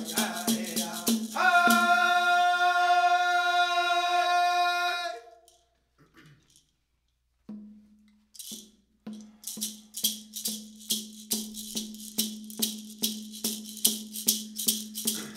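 Women's Dance song: a long held sung note ends one song, followed by about two seconds of silence. A drum and rattle then start up again for the next song, beating about three times a second.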